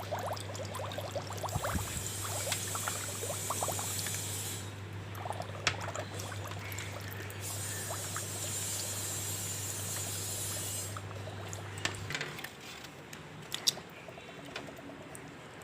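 Water running and splashing from a tap while plastic water-purifier parts are rinsed, the flow getting louder twice, with light knocks as the parts are handled. A low steady hum underneath stops about three-quarters of the way through.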